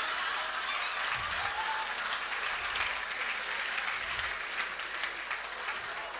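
Live audience applauding, many hands clapping at once, dying down slowly near the end.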